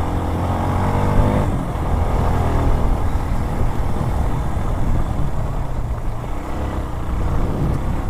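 Motorcycle engine running under changing throttle on a rough off-road trail: a clear engine note for about the first second and a half, then an uneven, choppy rumble.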